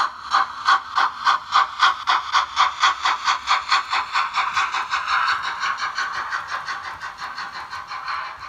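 Steam locomotive chuffing as it pulls away, the beats quickening from about three to about six a second over a steady hiss, then fading into the hiss near the end.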